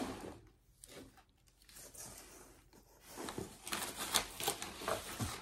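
Packaging rustling and crinkling as items are handled in a cardboard box: a quiet lull, then irregular rustles with small clicks and taps from about three seconds in.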